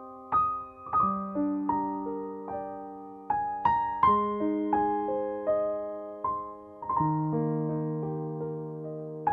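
Background music: solo piano playing slow broken chords, each note struck and left to ring and fade.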